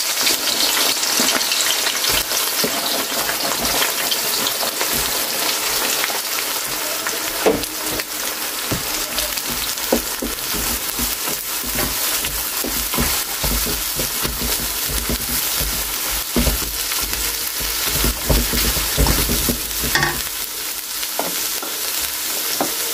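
Sliced onions sizzling in hot oil in a metal pan, strongest in the first couple of seconds after they go in, while a wooden spatula stirs them and knocks against the pan a few times.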